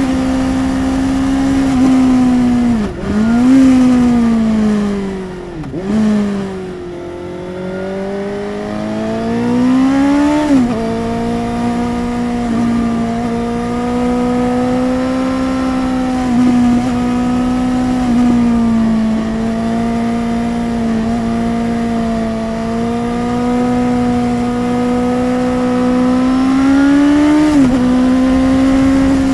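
Suzuki GSR750's inline-four engine through a Yoshimura R11 exhaust while riding, heard from the rider's seat. The note holds mostly steady. It dips twice in the first few seconds as the throttle comes off. About ten seconds in, and again near the end, the revs climb and then fall sharply, as at an upshift.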